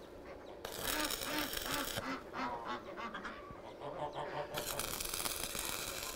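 Stick arc welding: the arc crackles and hisses in two spells that start and stop abruptly, with a pause of about two seconds between them. A bird gives a quick run of short calls during the pause.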